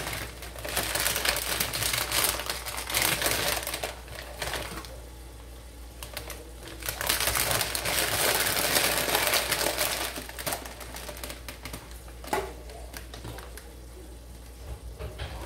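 Plastic crinkling and rustling in two spells, about a second in and again from about seven to ten seconds, with a single sharp knock near the twelve-second mark.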